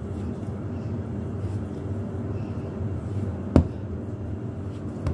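Bread dough being kneaded by hand on a floured countertop, with one sharp thump about three and a half seconds in and a smaller one near the end, over a steady low hum.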